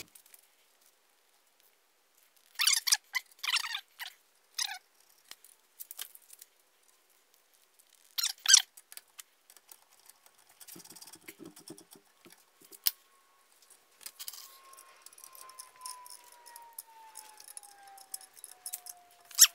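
Small metal parts being handled and set down on a workbench: short, sharp scraping and clinking sounds in a few clusters, mostly early on and about halfway, with faint ticks between. A faint tone slowly falls in pitch over the last several seconds.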